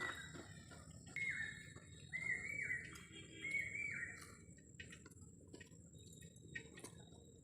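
A bird calling: three or four short, slightly falling calls close together in the first half, over faint scattered clicks.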